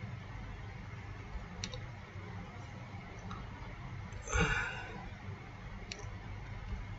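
Two faint computer mouse clicks about four seconds apart over a low steady hum, with a short breath about halfway through.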